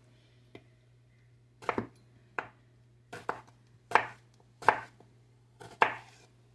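Chef's knife cutting through a round green Thai eggplant and striking a wooden cutting board: a string of sharp chops at an uneven pace, some in quick pairs. A faint steady low hum sits underneath.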